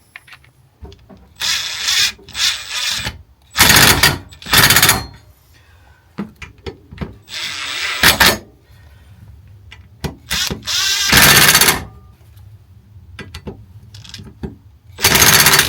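Power tool run in about eight short bursts, tightening the nuts on a motorcycle rear sprocket's studs, with its power turned down.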